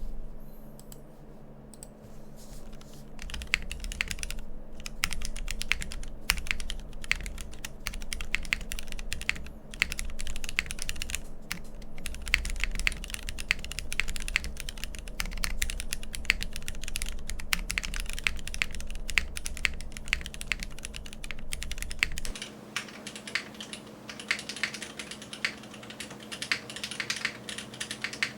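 Steady, fast typing on a Geonworks F1-8X 722 tenkeyless mechanical keyboard with Cherry Hyperglide MX Black linear switches on 50 g springs, an aluminium plate, no foam and Hammerworks CRP R5 keycaps, giving a clean, clacky keystroke sound. After a few sparse keystrokes the typing becomes dense. About 22 seconds in, the recording switches from a condenser mic to the camera's own mic, and the low end drops out.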